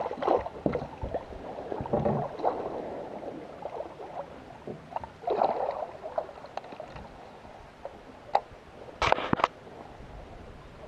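Hooked fish splashing and thrashing at the water's surface beside a boat as it is played in, with a few sharp knocks near the end.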